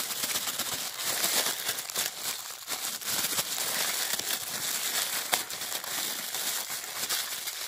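Clear plastic packaging bags crinkling and rustling as they are handled, a continuous run of crackles with one sharp click a little after five seconds in.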